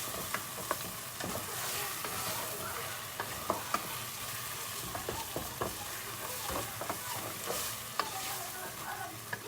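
Meat, onion and tomato paste sizzling as they fry in a pot, stirred with a utensil that clicks and scrapes against the pot at irregular moments.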